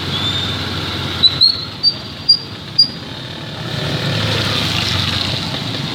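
Outdoor background rumble that swells into a passing-vehicle-like noise about four seconds in, after a run of four or five short, high-pitched chirps or squeaks.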